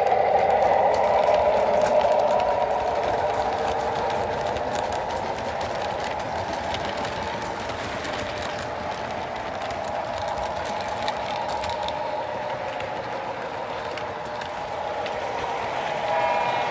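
O gauge model freight train running on three-rail track: a steady whir and rumble of the locomotive's motor and metal wheels, with light clicks, easing off a little as the locomotive moves away and the boxcars roll past.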